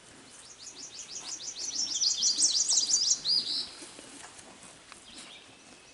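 A songbird singing a rapid series of high, down-slurred notes for about three seconds, growing louder toward the end.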